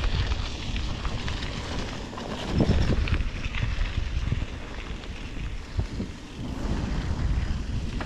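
Wind buffeting the microphone on a moving bicycle, an uneven rushing with heavy low rumble that swells in gusts, loudest about two and a half seconds in.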